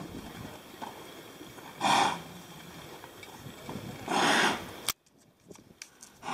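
A horse snorting twice, about two seconds apart: short noisy blows through the nostrils, the second longer than the first.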